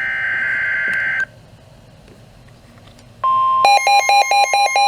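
NOAA Weather Radio emergency alert: a burst of just over a second of warbling digital SAME header data, a short gap, then the steady 1050 Hz warning alarm tone starting about three seconds in. Half a second later it is joined by a rapidly pulsing electronic alarm. Together they signal that a warning, here a special marine warning, is being issued.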